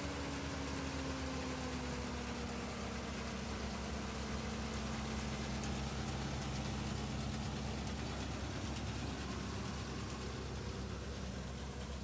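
John Deere tractor's diesel engine running steadily while hitched to a John Deere 468 round baler. The engine note sinks slightly in pitch over the first few seconds.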